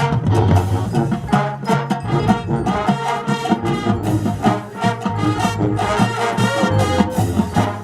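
High school marching band playing its field show: brass section with percussion keeping a steady beat.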